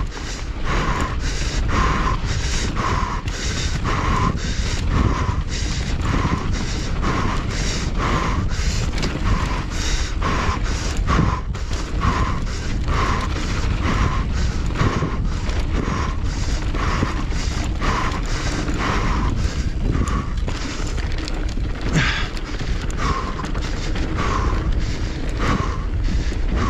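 A mountain biker panting hard and rhythmically from heavy effort, about four sharp breaths every three seconds. Underneath is a steady low rush of wind and trail noise from riding.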